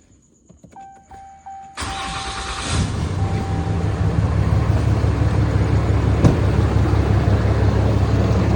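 2021 Ram 2500's 6.7-litre Cummins inline-six diesel cranking and starting, then idling with a steady low growl, the noise the customer complained of. The mechanic places it right behind the grille, where he sees the fan clutch wobbling. A steady electronic tone sounds just before the engine cranks.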